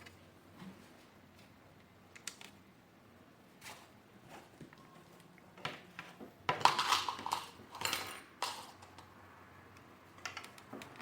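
Parts of a Mondial Turbo Cycle vacuum cleaner being handled and fitted together: scattered clicks and knocks, with a burst of clattering about six and a half seconds in.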